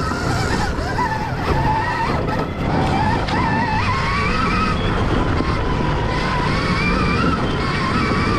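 Stark Varg electric dirt bike's motor and drivetrain whine, rising and falling in pitch as the throttle is worked, over a steady low rumble of wind and tyres.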